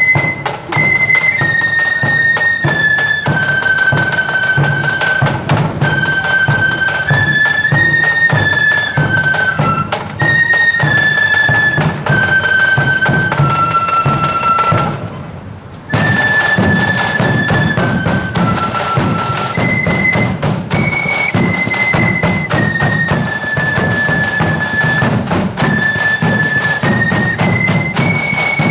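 A marching flute band playing a march: many flutes in unison carry one high melody over steady drum beats. The music breaks off for about a second around halfway through, then starts up again.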